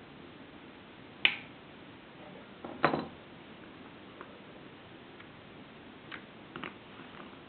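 Red-handled side cutters snipping zip ties on a spoke-mounted bicycle LED light: two sharp snaps about a second and a half apart. A few lighter clicks follow near the end.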